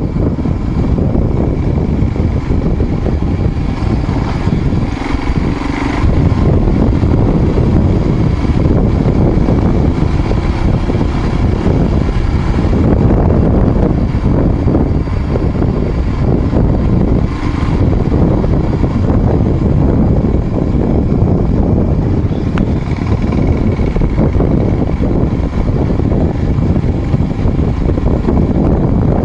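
A vehicle driving up a dirt mountain road: a steady, loud low rumble of engine and road noise.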